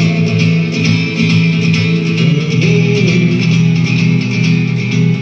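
Instrumental break in a rock song: band music led by guitars, with no singing.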